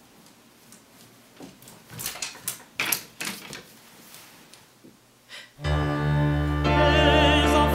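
Wire and plastic hangers clicking and sliding along a closet rod as clothes are pushed aside, with soft rustling of fabric. About five and a half seconds in, loud dramatic music with sustained low chords starts, and a vibrato singing voice joins a second later.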